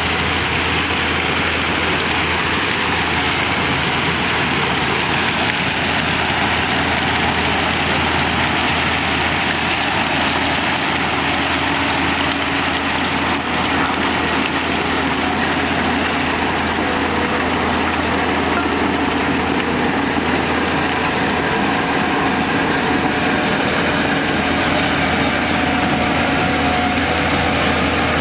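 Heavy diesel earthmoving machinery running steadily at work, a constant engine drone with no pauses.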